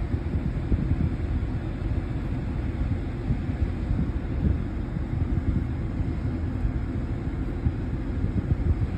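Wind buffeting the phone's microphone: an uneven low rumble with small irregular gusts and no distinct tones.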